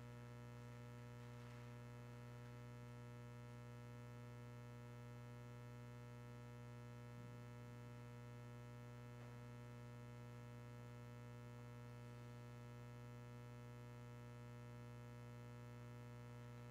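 Near silence with a steady low electrical mains hum, many evenly spaced overtones above it, unchanging throughout.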